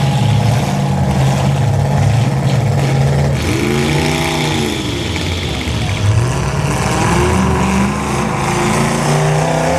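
Engines of 1980s demolition derby cars running hard, with one engine revving up and back down near the middle and another climbing in pitch a little later.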